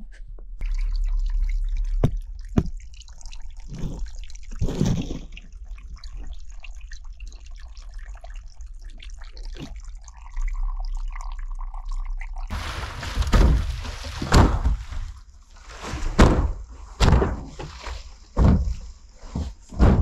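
Water dripping and trickling from a leaking plastic cistern tank, with a low rumble underneath. Later comes a run of about ten loud, hollow thunks as an empty IBC tote in its metal cage is tipped end over end across frozen ground.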